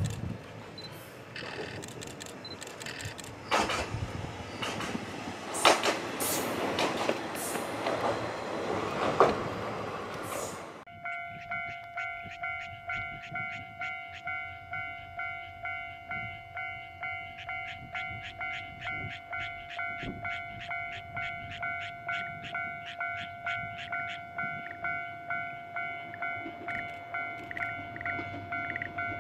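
Isumi Railway diesel railcar running past, a rushing rumble of engine and wheels with a few sharp clicks over rail joints. About a third of the way in this cuts to a level crossing warning bell ringing steadily, about two strikes a second, as the next train approaches.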